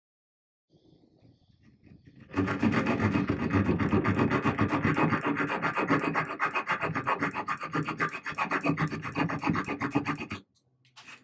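Multitool's small folding saw blade cutting through a broken wooden dowel in a chair joint, in quick back-and-forth strokes. The sawing starts about two seconds in and stops about ten seconds in.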